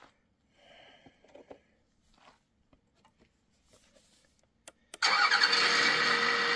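A few faint clicks and handling noises. Then, about five seconds in, a 1/14-scale RC hydraulic excavator's motor starts abruptly, spins up and runs steadily and loudly with a constant whine.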